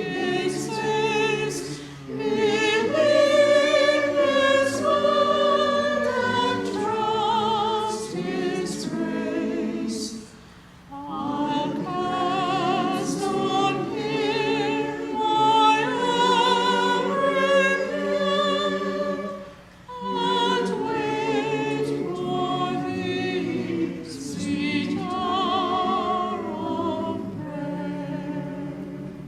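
Church choir singing with vibrato, in phrases broken by two short pauses, about ten and twenty seconds in.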